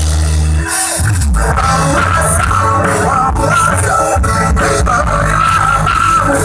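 Rock music with a band and a wavering sung or lead melody over guitar.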